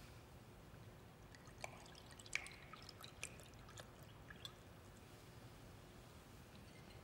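Faint pouring from a glass bottle into a small drinking glass, with a few light clinks and taps of glass on glass; the loudest clink comes about two and a half seconds in.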